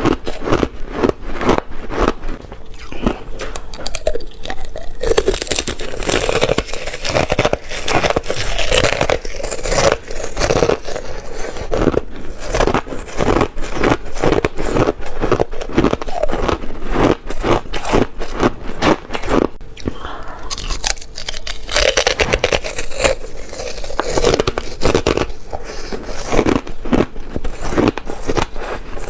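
Close-miked biting and chewing of thin, crunchy ice: a dense run of rapid crunches and crackles, over and over.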